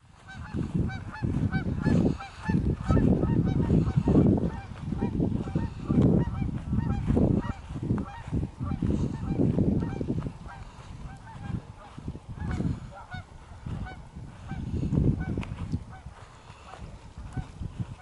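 A flock of geese honking repeatedly, with many short calls overlapping. Wind rumbles in gusts on the microphone and is the loudest part.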